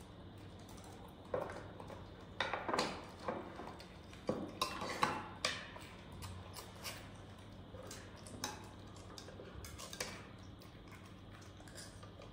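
Dishes and cutlery clinking and knocking in several quick clusters through the middle of the stretch, then fewer and fainter taps.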